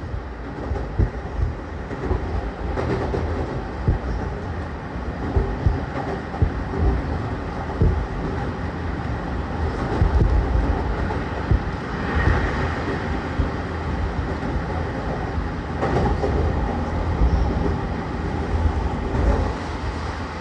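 Running noise inside a motor car of an E231 series 1000-number electric multiple unit with its original, not-yet-renewed traction equipment: steady wheel-and-rail rumble with irregular knocks and clacks over the rail joints as the train runs along the line.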